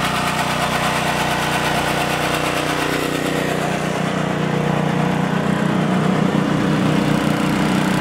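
Small portable gasoline generator engine running steadily at a constant speed. It gets a little louder, with a heavier throb in its low tone, from about halfway through.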